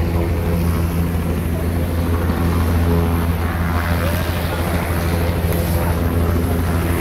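Helicopters running on the ground, giving a steady low engine and rotor drone that holds at an even level throughout.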